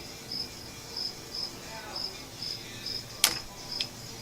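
Crickets chirping steadily, about two high chirps a second, with a single sharp click about three seconds in.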